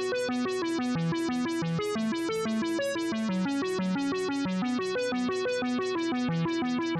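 Background music: a synthesizer or electric keyboard playing a fast, repeating pattern of short notes, about five a second.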